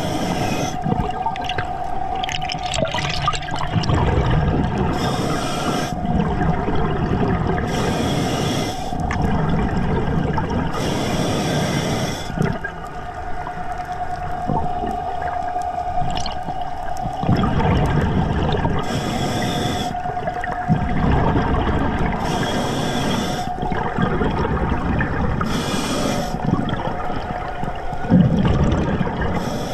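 Scuba diver breathing through a regulator underwater: a hiss on each inhalation, about seven in all, mostly a few seconds apart with a longer pause in the middle, alternating with rumbling, gurgling exhaled bubbles. A steady whine runs underneath.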